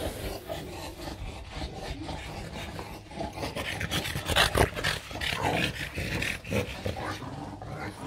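A French bulldog and an English bulldog making irregular breathing and snuffling sounds as they chase and snap at bubbles, busiest about halfway through.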